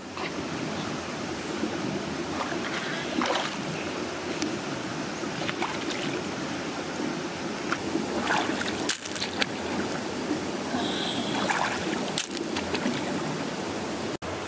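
Stream water running steadily, with a few short clicks scattered through.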